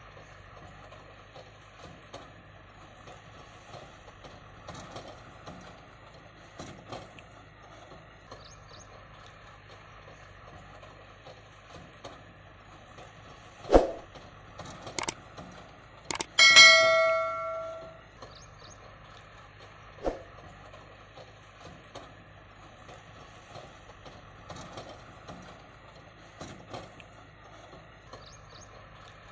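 A few sharp knocks, then a loud metallic clang that rings with several pitches and fades over about a second and a half, with another knock a few seconds later, against a faint background of small ticks.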